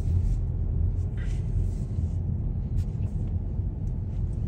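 Steady low rumble of a car driving slowly, heard from inside the cabin, with a few short soft hissy noises over it.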